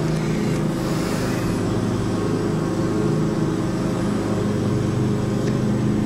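A steady, even mechanical hum with several pitched tones runs throughout. About a second in there is a brief rustle, and near the end a faint snip of small scissors cutting a thin clear cast-resin sheet.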